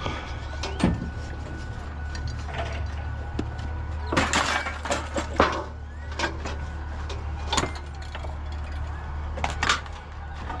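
Scattered knocks and clatters of scrap pieces being handled, over a steady low hum; the busiest clatter comes about four to five seconds in and again near the end.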